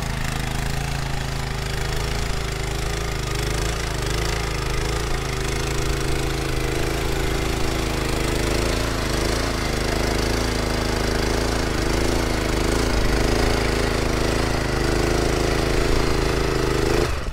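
Small petrol engine of a two-wheel walking tractor running under load as it ploughs hard, compacted soil, its note wavering. It cuts off just before the end.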